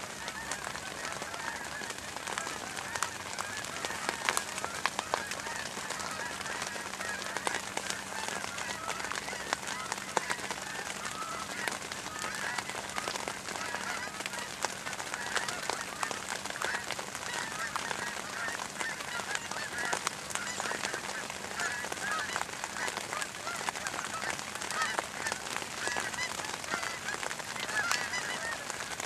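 A large flock of geese in flight, honking continuously: a dense chorus of many overlapping calls.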